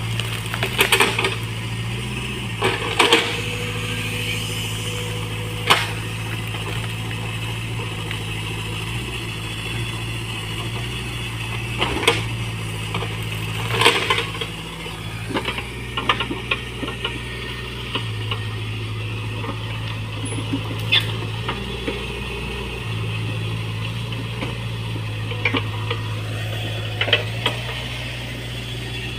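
Mini excavator engine running steadily, its note stepping up and down as the hydraulics take load, with scattered sharp knocks and clanks from the working machine.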